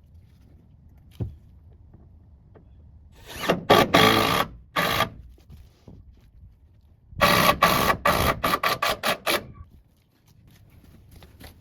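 Carpentry work on a wooden shed's boards: a click, then a long noisy stretch of several loud bursts, then after a pause a quick run of about eight short, sharp strokes, about four a second.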